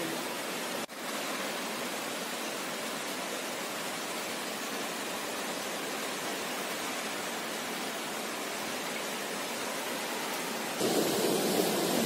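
Rushing water of a rock waterfall, a steady hiss-like roar. It drops out briefly about a second in, and turns louder and fuller near the end.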